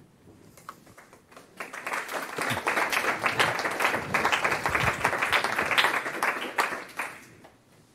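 Audience applauding: clapping begins about a second and a half in, builds, holds, and dies away near the end.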